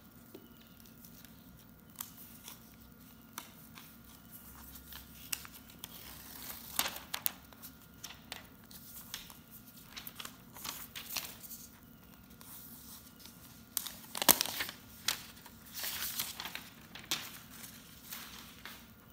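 Protective paper wrap being peeled and torn off an iPad mini as it is lifted from its box: uneven rustling and tearing with small clicks and taps of handling, the sharpest snap a little past the middle.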